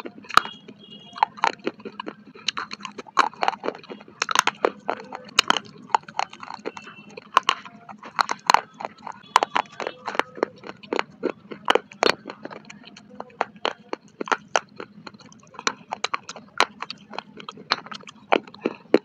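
Close-miked crunching of clay pot chunks being bitten and chewed: sharp, irregular cracks and crunches several times a second.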